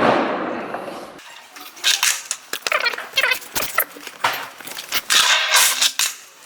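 Skateboard wheels rolling on wet pavement, fading out about a second in, then a run of sharp clacks and metallic rattles from the board and its trucks.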